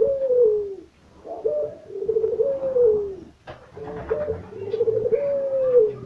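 Ringneck dove cooing: rolling coos repeated about every two and a half seconds. Each coo has a quick trill followed by a long note that rises slightly and then falls away.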